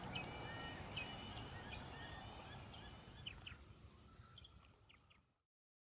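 Faint outdoor pond ambience with birds calling in short repeated chirps over a steady faint high-pitched tone, fading out near the end.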